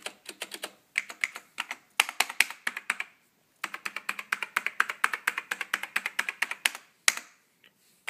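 Typing in rapid bursts on a Dell AT-101W mechanical keyboard with black Alps switches: quick runs of sharp key clacks, with a short pause a little after three seconds and a single keystroke near the end.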